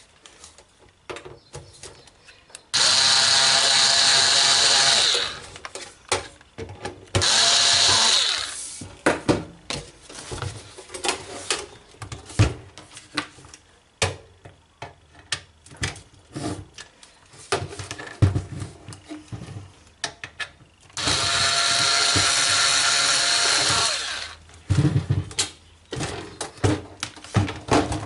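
Electric screwdriver running in three bursts of a few seconds each, steady and buzzing, backing out the screws of a DVD home cinema unit's cover. Short clicks and knocks of handling come between the runs.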